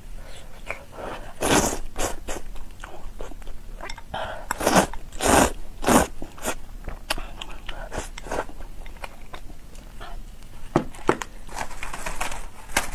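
Close-up eating sounds of braised glass noodles with minced pork and rice: wet chewing and mouth clicks throughout, with several louder slurps of noodles, the biggest cluster about halfway through.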